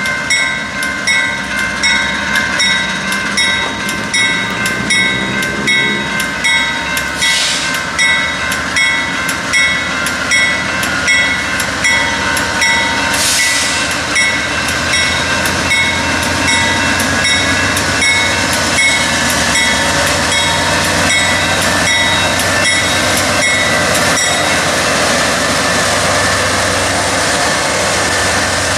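Freight train passing at trackside, its wheels clicking over the rail joints in a regular beat, with a thin steady ringing tone above. Two short hisses come about a third and halfway through, and in the second half the clicking blends into a steadier rumble of rolling cars.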